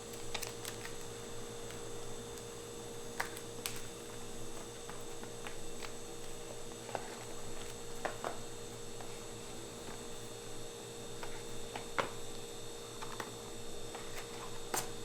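Steady electrical hum with a faint high tone, under scattered light clicks and taps; the sharpest click comes about twelve seconds in.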